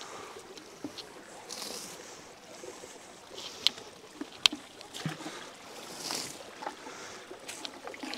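A stream running over stones, with a few sharp knocks of empty plastic buckets being handled and stacked; the loudest knocks come about three and a half and four and a half seconds in.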